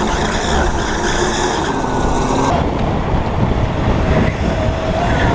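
Electric drift kart driving, its motor whining and gliding up and down in pitch under heavy wind and road noise on the onboard microphone. The sound changes abruptly about two and a half seconds in.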